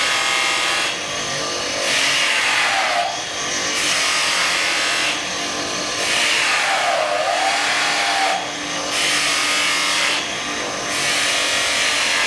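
Knife blade being buffed on a powered buffer wheel dressed with paste: the wheel runs with a steady whirr while the steel rasps against it, the hiss changing every second or so as the blade is drawn back and forth, honing the edge and lifting off the burr.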